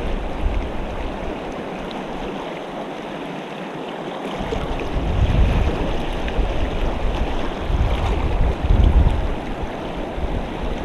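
Shallow river riffles rushing steadily over rocks. From about four seconds in, gusts of wind buffet the microphone with a low rumble.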